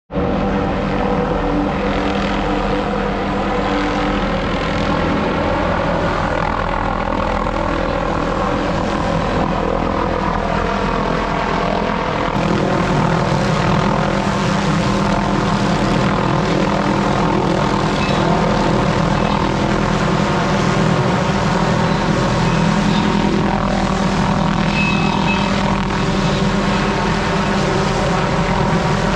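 A small engine running steadily, with a fuller tone from about twelve seconds in.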